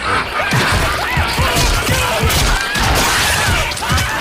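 Cartoon sound effects: a loud, noisy crashing commotion with wavering cries running through it, from about half a second in.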